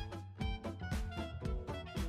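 Background music with a steady quick beat and pitched instrumental notes.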